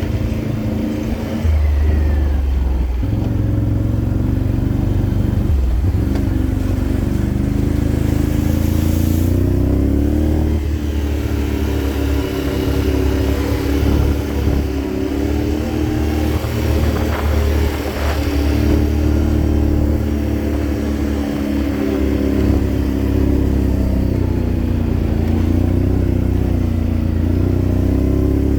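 Can-Am off-road vehicle's engine running under load, its pitch climbing about a third of the way in and then rising and falling as the throttle is worked.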